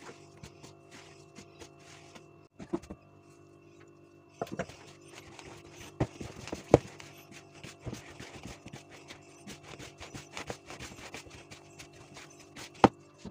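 Hands mixing and kneading soft kefir dough in a plastic bowl: many light, irregular ticks and rustles of fingers working the dough, with a few sharper knocks against the bowl, the loudest near the middle and near the end, over a faint steady hum.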